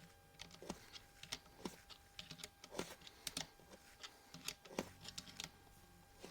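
Faint, irregular light metallic clicks and taps of a hand tool tightening a lug on a CO2 air rifle, turned a little at a time without a ratchet.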